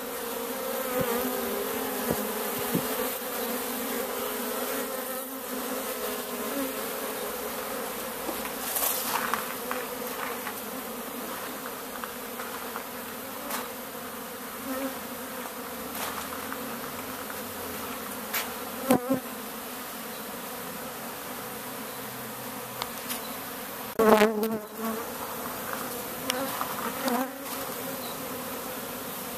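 Honeybees buzzing steadily around the entrance hole of their nest, a continuous hum of many wings. A few brief louder swells come as single bees fly close past, the loudest about three quarters of the way through.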